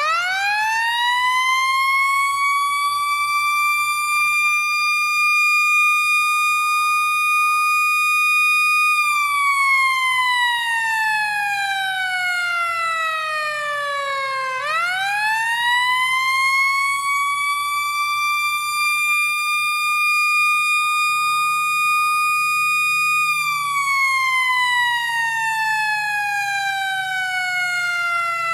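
Federal Signal Q2B electro-mechanical fire truck siren winding up quickly to a high, steady wail, holding it, then slowly winding down in pitch. The cycle plays twice: the second wind-up comes about halfway through, and the second wind-down runs to the end.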